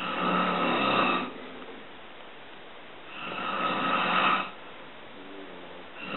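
A man snoring in his sleep: long snores about three seconds apart, two of them full and a third starting near the end.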